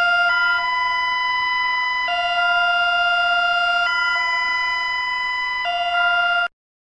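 Electronic two-tone emergency alert alarm: a loud steady tone switching back and forth between a lower and a higher pitch about every two seconds, cutting off shortly before the end.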